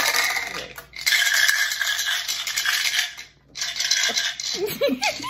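Dice rattling in a plastic dice cup, shaken for about three seconds, then shaken again briefly after a short pause. A voice comes in near the end.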